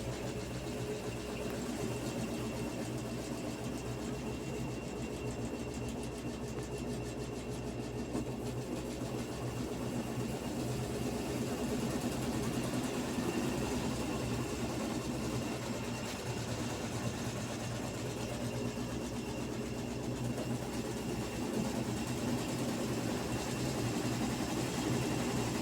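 Consul Facilite 11 kg CWK11 top-load washing machine running with a steady motor hum, during a test of its suspension; it gets a little louder about halfway through.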